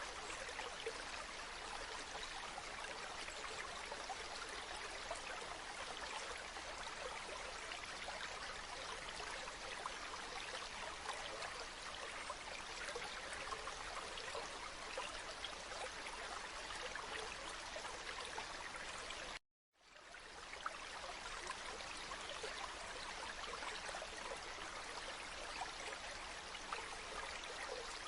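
River water running steadily, an even rushing babble. About two-thirds of the way through it cuts out to silence for a moment and then fades back in, like a splice in a looped recording.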